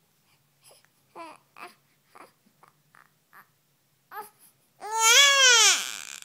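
A two-week-old newborn who cannot sleep fusses with short whimpers and grunts, then breaks into one loud wail near the end that rises and falls in pitch.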